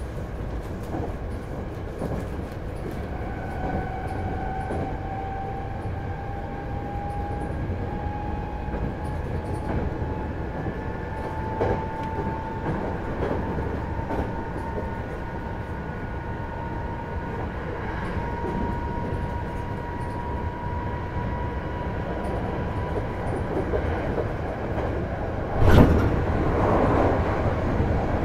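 Hankyu 8000 series electric train, with its Toshiba IGBT inverter, running at speed: steady wheel-on-rail rumble under a thin traction-motor whine that rises slowly in pitch as the train gains speed. Near the end there is a sudden loud bang, followed by a louder rushing noise.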